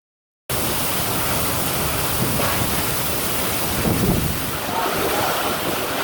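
Strong storm wind and heavy rain in a tornado, rushing steadily and buffeting the microphone, starting abruptly about half a second in.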